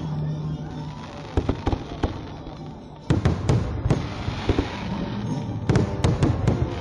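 Aerial fireworks going off: sharp bangs in three quick clusters, a little over a second in, about three seconds in and near the end, with crackling between them.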